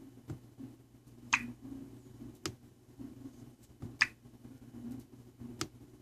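About four short pops from a 17-inch MacBook's built-in speakers, roughly one every second and a half, as the sound balance is shifted between left and right. Sound coming from both sides shows the resoldered speaker connector is working.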